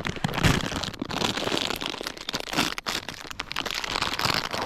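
A bag of dry fishing groundbait being handled and opened: the plastic packaging crinkles and rustles, with many small crackles.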